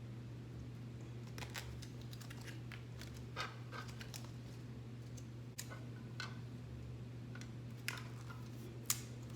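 Scattered light clicks and taps from hands handling and pressing parts of the build into place, over a steady low hum.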